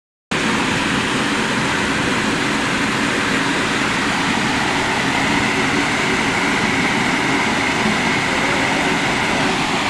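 Stream water running steadily over stones, an even rushing that holds without change.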